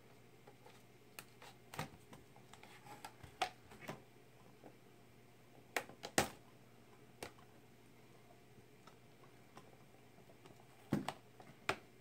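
Scattered sharp clicks and small knocks of a TiVo Bolt's white plastic case as its top cover is pried and worked against a clip that sticks. The louder snaps come about six seconds in and again near the end.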